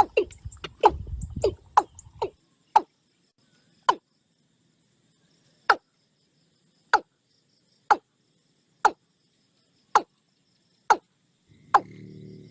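An animal's short, sharp calls, each dropping in pitch, repeated quickly at first (about four a second) and then slowing to about one a second.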